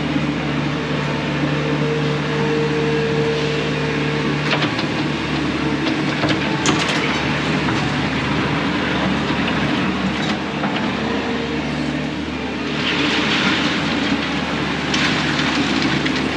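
Bobcat T630 compact track loader's diesel engine running steadily while it spreads gravel, with scattered clicks and clatter and a brief rush of noise about thirteen seconds in.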